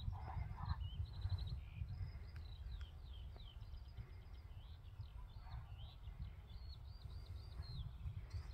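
Small birds singing and calling, with many short high chirps and whistles, over a steady low rumble. Near the start come a few muffled hoof thuds from Konik horses running.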